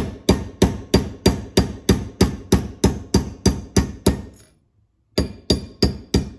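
Steel hammer striking a cut-down Allen wrench used as a punch, driving the retaining pin (called the cotter pin) out of a Ford 6F55 differential carrier's spider-gear shaft. The taps come steadily at about three a second, each with a short metallic ring, stop for under a second near the end, then start again.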